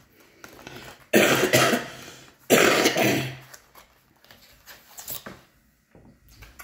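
A woman coughing twice, each cough about a second long and loud, followed by faint soft handling noises.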